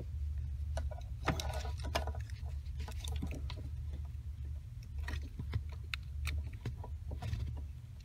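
Light plastic clicks and rustling as a crimped wire terminal is pushed into an automotive wiring connector and the harness and connectors are handled, over a steady low hum.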